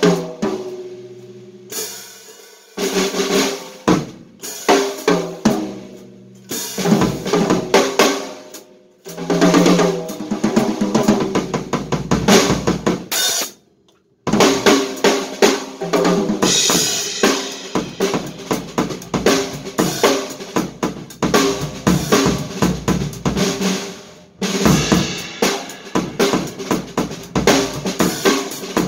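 A 1967 Yamaha drum kit played with sticks: 12 and 14 inch toms, 20 inch bass drum and 5.5x14 snare with Remo coated and Fyberskyn heads, left open and ringing with only a felt strip on the front bass drum head, together with cymbals and hi-hat. It opens with single hits and short fills, stops briefly about halfway, then settles into steady continuous playing.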